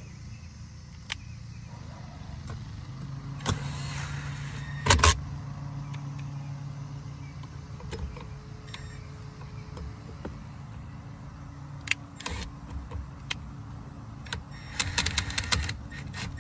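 Cordless impact driver with a T30 Torx bit driving screws into a metal seat-release bracket, hammering in a rapid burst near the end. Before that there is a steady low hum with a few sharp knocks, the loudest about five seconds in.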